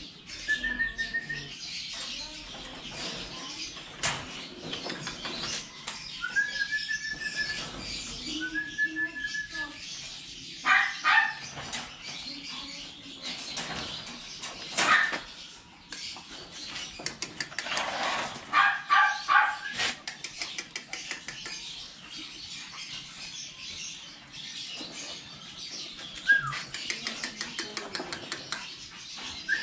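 Dogs whining and yelping in short high calls, with a quick run of several yelps a little past the middle. Scattered rattles and clicks come from the wire dog cage as it is opened and the dogs move.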